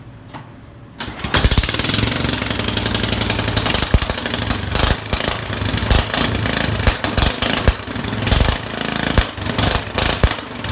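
Straight-piped lawnmower engine, its muffler removed and primed with starting fluid, catches about a second in and runs loud and ragged, with sharp uneven exhaust pops.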